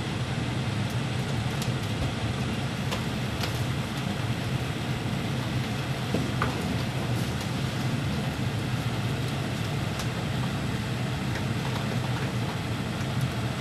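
Steady low hum and hiss of room background noise, with a few faint light clicks.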